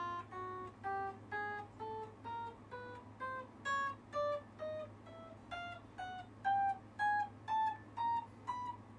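1980s Greco SA-64-60 semi-acoustic electric guitar played one plucked note at a time, about two notes a second, climbing steadily in pitch up the neck. This is a play-through to test the new frets and nut after a refret, and the player finds them free of problems. A steady low hum sits underneath.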